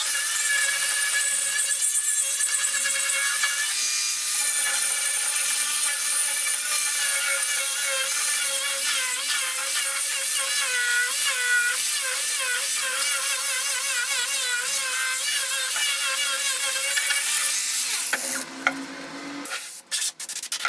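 High-speed rotary power tool grinding bamboo root, its motor whine wavering in pitch as the bit bites and eases off. Near the end it breaks off abruptly, with a few short gaps.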